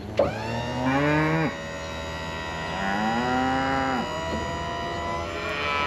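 Cattle mooing: two long calls, each rising and then falling in pitch, about two and a half seconds apart.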